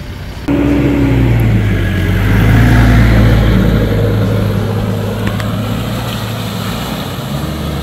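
4x4 SUV engine pulling hard through a muddy off-road obstacle; it comes in suddenly about half a second in, is loudest around three seconds, then eases off.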